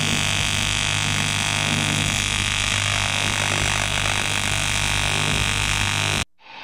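AC TIG welding arc on porous aluminium-silicon cast alloy with 4043 filler rod being fed in: a steady buzzing hiss that cuts off abruptly near the end.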